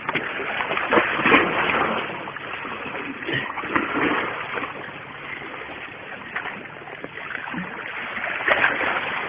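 Sea water splashing and washing against the boulders of a rocky breakwater, a rough hiss that swells and eases irregularly.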